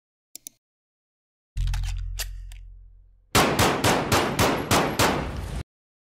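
Intro sound effects: a quick double click, a deep boom that fades away, then a rapid run of about nine loud, sharp strikes, about four a second, cut off abruptly.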